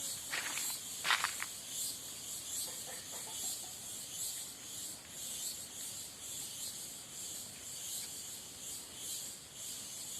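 Cicadas buzzing in a steady high-pitched chorus that pulses rapidly, with a few short rustles or crackles in the first second and a half.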